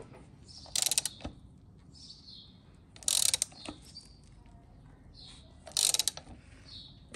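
Ratchet wrench turning the forcing screw of a puller on the camshaft pulley of a VW 1.9 TDI engine: three short bursts of ratchet clicking, about two and a half seconds apart, as the screw is wound in to break the pulley off the tapered cam end.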